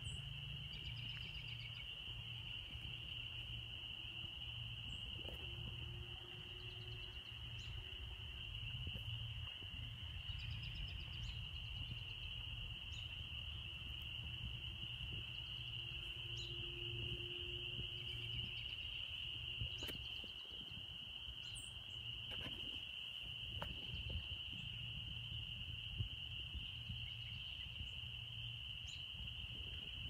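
A steady chorus of crickets trilling, with a few faint bird chirps and a low rumble underneath.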